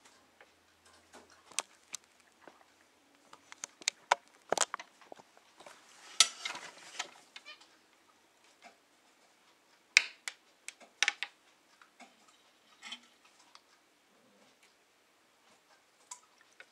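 Scattered light clicks, taps and knocks at irregular intervals. The sharpest come about four and a half and ten to eleven seconds in, with a short rustling patch about six seconds in.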